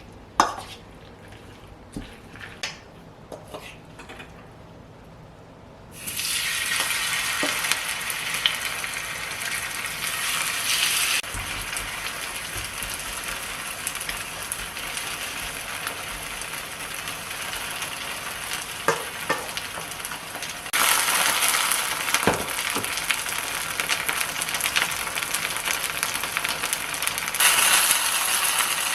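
Food frying in oil in a pan: a steady, dense sizzle that starts suddenly about six seconds in and grows louder twice later on. Before it there are a few light clicks and clinks of kitchen handling.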